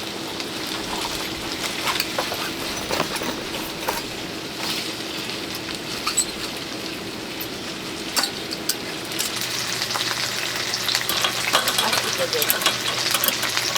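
Food frying in a pan, a steady sizzle with scattered crackles and pops. The crackling grows busier and louder from about ten seconds in.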